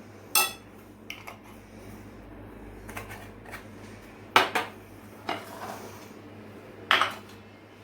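A spoon and dishes clinking and knocking together, about seven separate strikes, the loudest a little past halfway, as spices are spooned out.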